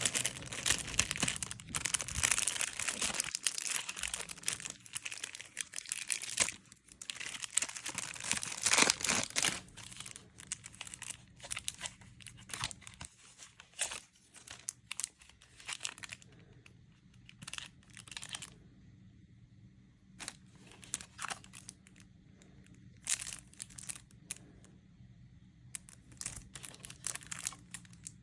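Plastic wrapping being torn open and crinkled off a pack of playing cards: dense, continuous crackling for about the first ten seconds, then scattered short crinkles and clicks as the pack is handled.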